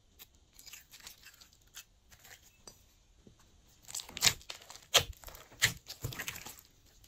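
Hands pressing and kneading glossy slime studded with sprinkles and confetti. It makes sticky crackling and popping, with a few louder pops between about four and six seconds in.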